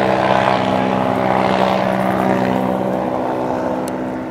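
Small piston engine of a vintage light airplane droning steadily with its propeller, gradually fading toward the end.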